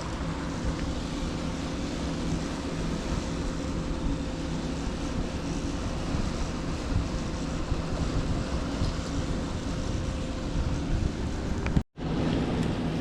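Steady outdoor riverside ambience: rushing river water and wind on the microphone, with a low steady hum underneath. The sound drops out abruptly for a moment near the end.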